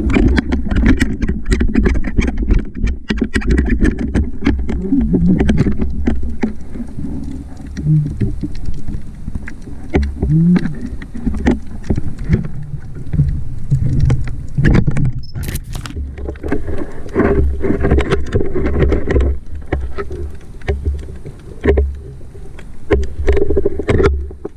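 Underwater sound picked up by a submerged camera: a low rumble of moving water with many sharp clicks and crackles, and some low wavering tones.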